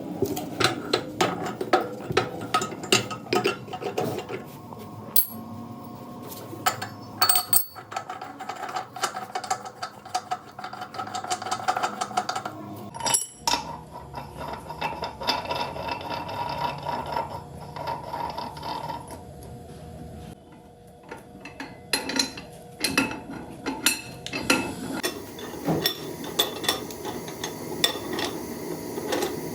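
Hand tools clinking and knocking on metal in irregular strokes during tyre repair work, over a faint steady hum.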